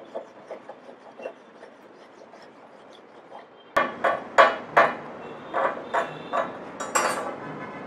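Steel wire brush scrubbing back and forth over a fresh arc-weld bead on a steel T joint, cleaning it after the slag is chipped off. Faint scratching at first, then a run of loud, harsh strokes from about four seconds in.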